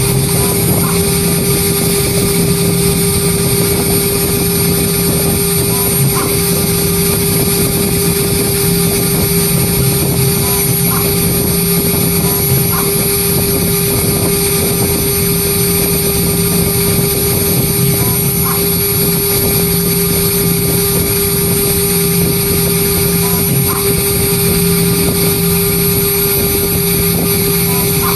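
CNC engraving machine spindle running at speed while its bit cuts lettering into an aluminium composite panel: a steady whine with a constant tone and high-pitched ringing over a dense cutting hiss, with a few faint ticks.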